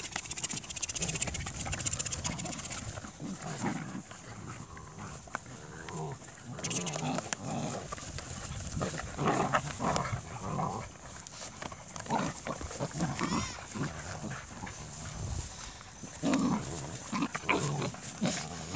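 Dutch Shepherd x Belgian Malinois puppies vocalising in rough play: short, irregular yips, whines and growls, coming thick and fast.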